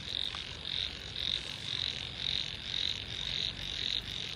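A chorus of frogs calling after heavy rain: high, pulsing calls repeating about twice a second.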